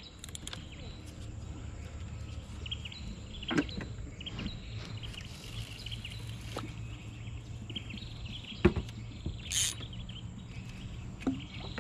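Outdoor ambience: scattered short bird chirps and a few sharp knocks over a low steady hum.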